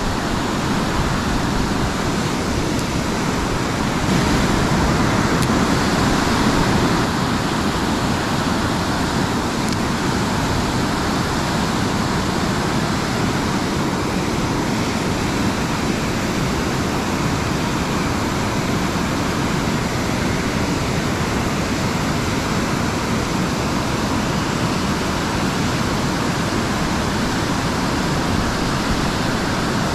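Steady rush of fast-flowing river water in the outflow below a power-generating dam, a little louder for a few seconds near the start.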